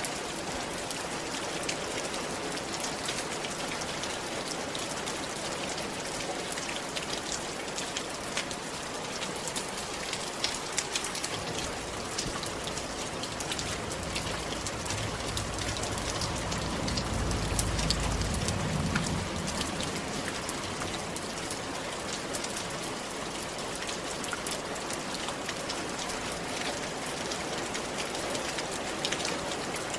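Steady rain pattering on a roof, with many separate drops ticking sharply against it. About halfway through, a low rumble swells for a few seconds and fades away.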